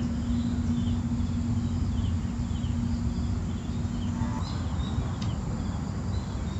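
Rural outdoor ambience: scattered short, high chirps over a steady low rumble, with a low steady hum that stops about four seconds in.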